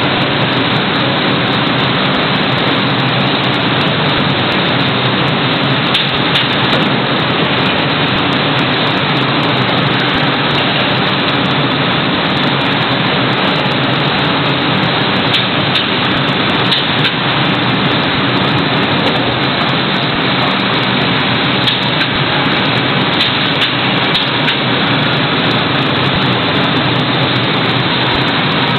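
Machinery of an automatic carton tunnel freezer running: a loud, steady noise with a low hum and a few faint ticks.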